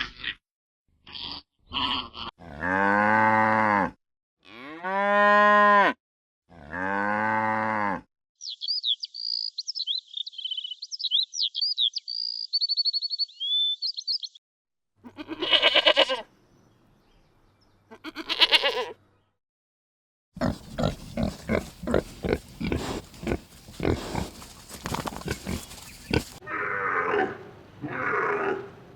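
A run of separate farm-animal calls with silences between them: three long cow moos in the first eight seconds, then about six seconds of high chirping, two short calls around fifteen and eighteen seconds in, and from about twenty seconds in a long stretch of rapid pulses.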